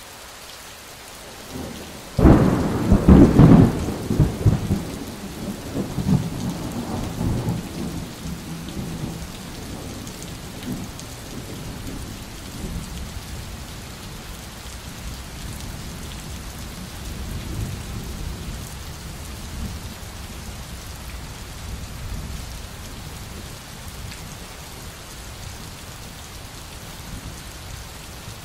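Thunderstorm: steady rain with a sudden loud thunderclap about two seconds in that rumbles away over several seconds, then fainter rolls of thunder under the rain.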